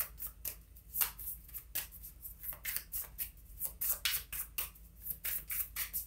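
A deck of tarot cards being shuffled by hand: a quick run of short papery swishes and slaps, about three a second.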